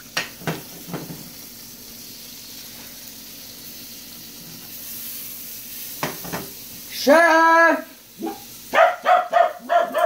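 Butter sizzling in a hot skillet, with a few light clicks of a spoon against the pan in the first second. At about seven seconds a loud, long pitched call cuts in, the loudest sound here, followed near the end by a quick run of short calls.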